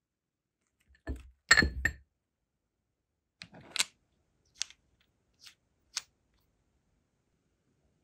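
Brass wax seal stamp being picked up and handled on a table: a knock and ringing metallic clinks, then a few light separate clicks of the brass head and handle.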